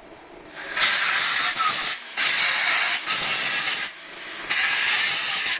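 Four loud bursts of hissing, about a second each, that start and stop sharply, like a jet of spray or compressed air being triggered on and off.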